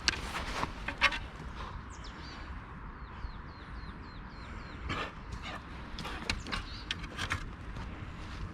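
A small bird gives a quick run of about eight high chirps in a row, among scattered sharp clicks and rustles.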